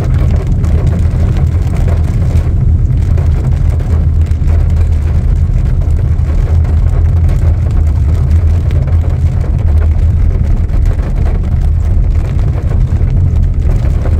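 A sedan driving on a wet road in heavy rain: a loud, steady low rumble of engine, tyres and rain.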